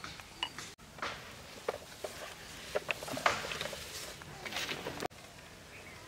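A spoon knocking and stirring in a cooking pot: scattered light clinks and short rustling strokes, busiest in the middle, as the ground spices are mixed in.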